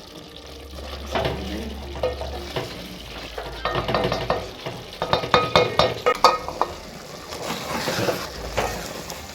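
Food frying in a metal pot while a spoon stirs it, scraping and clinking against the pot; the clinks come thick and fast in the middle few seconds.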